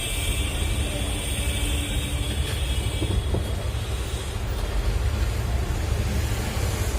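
Steady low machine rumble with a hiss, and a higher whine over it that fades out about four and a half seconds in.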